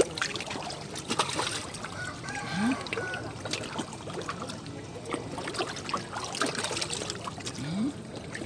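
Wild Pangasius catfish breaking the river surface, gulping and rolling, with irregular small splashes and trickling water.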